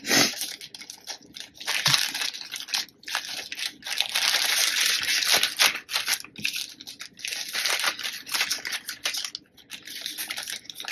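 Thin plastic zip-lock bags crinkling and rustling in the hands as nail tips are put back into a bag and the bag is pressed and closed, in irregular stretches with short pauses.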